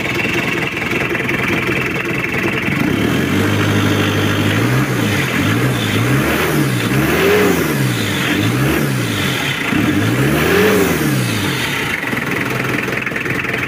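Mitsubishi 4D56T four-cylinder turbo-diesel idling, then held at a raised speed about three seconds in. It is then revved in about five throttle blips, the two highest near the middle and near the end, and settles back to idle. It sounds fairly smooth after re-tuning that cured its misfiring.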